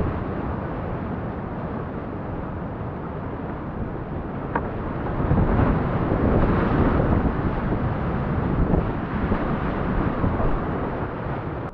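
Whitewater rapids rushing around a kayak, heard close on the boat's camera as a steady rush of water. It grows louder about halfway through and eases near the end.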